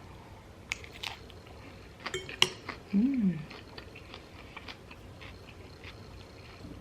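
Utensil clicking and clinking against a dish several times, loudest about two seconds in, with a brief hummed 'mm' just after.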